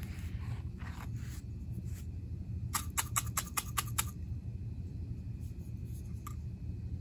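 A glass jar being handled and lifted off a cloth: a soft rustle, then a quick run of about eight light clicks over a second and a half, over a steady low rumble.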